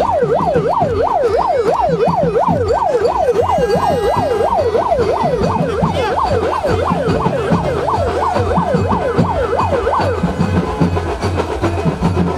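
Electronic siren yelping, its pitch sweeping rapidly up and down about three times a second, then stopping about ten seconds in; a low, steady music beat plays underneath.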